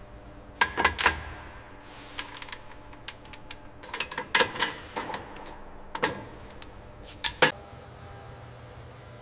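Sharp metallic clinks and clanks of tools and metal parts being handled, about a dozen irregular strikes, several ringing briefly, over a steady low hum.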